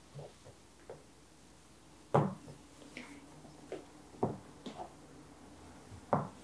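Casadei Blade stiletto pumps, with slim metal heels, tapping on a wood-look floor as the wearer steps and shifts her feet: about eight irregular sharp clicks, the loudest about two seconds in.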